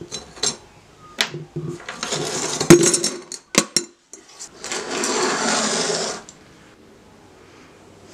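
Worn steel mower blades and rusty bolts clinking and clattering as they are handled and pushed about on a workbench, with one sharp knock near three seconds in. A longer scraping, brushing sweep across the bench top follows at about five seconds and stops about a second later.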